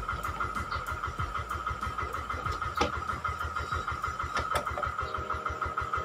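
A motor running steadily, with a constant whine and a rapid low pulsing several times a second, plus occasional clicks.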